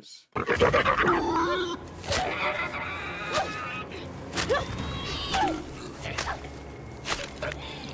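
Episode soundtrack of a wild boar being stabbed to death: short rising squeals and grunts from the boar, over repeated sharp stabbing and whacking impacts.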